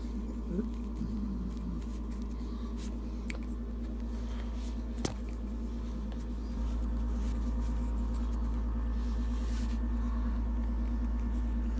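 Low steady rumble of hands handling and rubbing close to the microphone while a small flashlight's bottom cap is unscrewed, with a few faint clicks and one sharp click about five seconds in.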